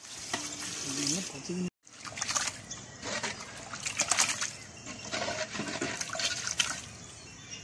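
Water pouring from a bowl into a large aluminium pot of thin mutton gravy, then after a brief break a long ladle stirring the watery gravy in a run of wet sloshing strokes.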